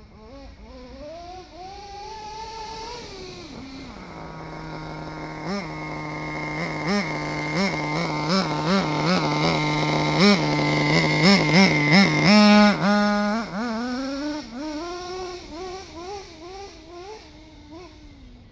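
Small engine revving out of sight: it grows louder with rising pitch, holds a steady note with a string of quick throttle blips at its loudest, then wavers and fades.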